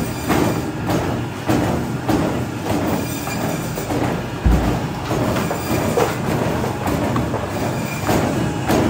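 Automatic frozen-meat cutting machine running, its comb blade head chopping frozen chicken on the conveyor in a rhythmic clatter of repeated strokes, about two a second, over a steady mechanical hum.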